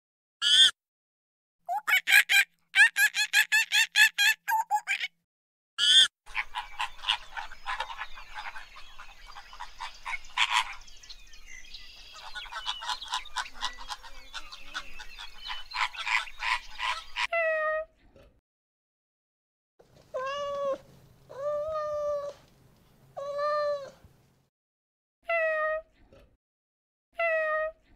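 A flock of flamingos honking and gabbling in a dense, overlapping chatter, then a domestic cat meowing about six times in separate calls near the end. The loudest sounds come at the start: a run of rapid, pulsed animal calls.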